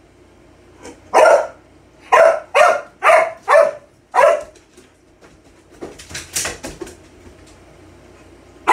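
A dog barking: a run of six sharp barks over about three seconds, then a patter of clicks and rattles around six seconds in, and one more bark at the very end.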